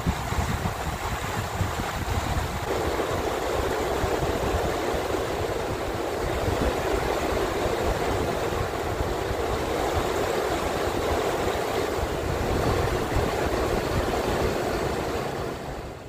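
Fast river rapids rushing over rocks, a steady wash of water that grows fuller about three seconds in, with a low rumble of wind on the microphone.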